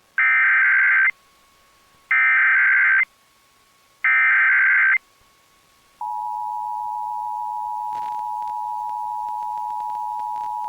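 Emergency Alert System SAME header: three bursts of screeching digital data tones, each about a second long and a second apart. About six seconds in, the steady EAS attention signal tone begins and holds, with a faint hum and scattered faint clicks beneath it.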